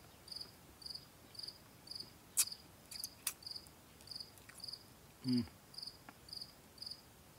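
A cricket chirping steadily, about two short high chirps a second. A few sharp clicks come a little over two seconds in, and a man gives a brief low murmur about five seconds in.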